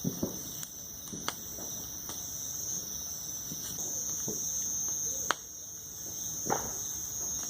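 Crickets chirring steadily in a high, continuous trill, with a few sharp clicks, one about a second in and one near the middle.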